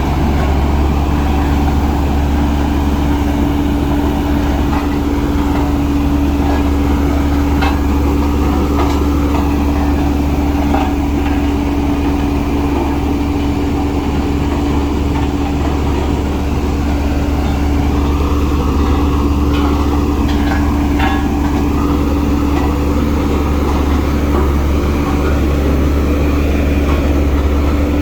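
Diesel engine of heavy earthmoving machinery running steadily at a constant, even note, with a few short clanks scattered through it.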